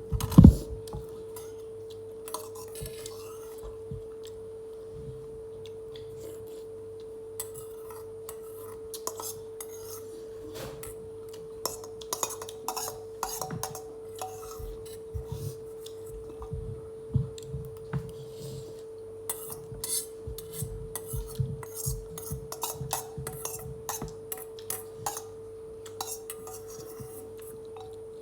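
Cutlery and a dish clinking and scraping in scattered short taps while chicken is eaten, with low thumps among them, over a steady hum.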